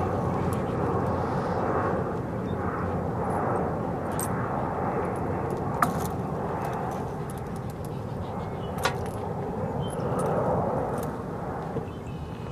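Steady outdoor rumble with a couple of sharp light clicks, a husky's collar tags and leash jingling as it moves.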